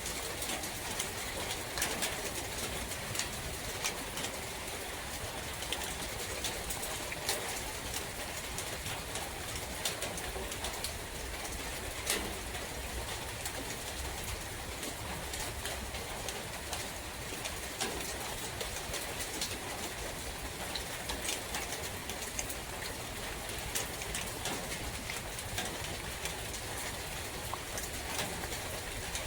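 Steady rain falling in a forest, with scattered drops ticking close by and birds calling.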